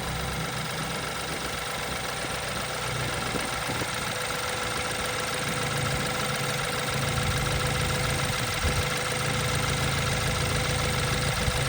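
BMW N20 turbocharged four-cylinder engine idling steadily, just after a timing chain and oil pump chain replacement.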